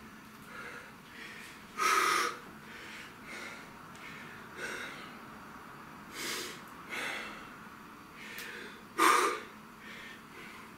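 A man breathing hard from exertion, with short, sharp breaths spaced every second or two. Two are much louder, forceful exhales: one about two seconds in and one near the end.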